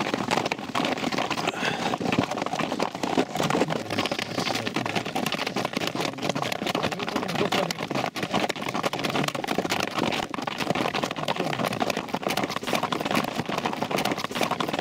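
Strong mountain wind in a snowstorm buffeting the microphone: a dense, steady rushing noise full of small crackles.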